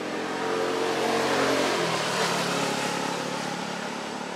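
A motor vehicle's engine passing by off-screen, growing louder over the first second and a half and then fading away.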